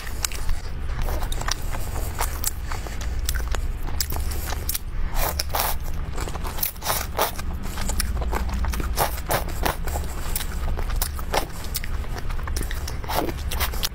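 Close-miked eating of spicy noodle soup: chopsticks lifting noodles, slurping them in, and wet chewing and lip smacks. These come as an irregular string of short clicks and smacks over a steady low hum.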